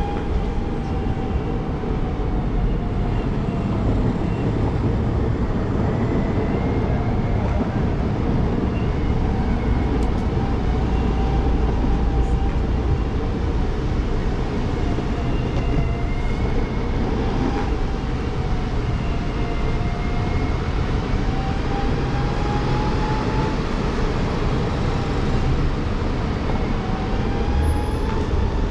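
Exway FLEX electric skateboard's motor whining while riding, its pitch slowly rising and falling as the board speeds up and slows down, over a heavy low rumble of wind and wheels on the road.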